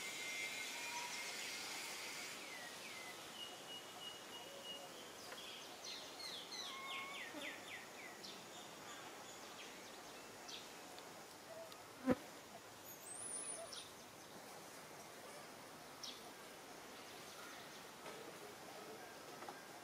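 Quiet outdoor tree-canopy ambience: a high insect drone that fades out in the first few seconds, then scattered short bird chirps and trills. One sharp click stands out past the middle.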